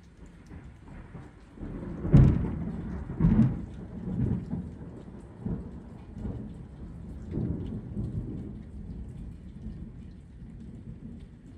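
Rain falling steadily, with thunder rumbling: two loud peals about two seconds in and a second later, then softer rolling rumbles for several seconds.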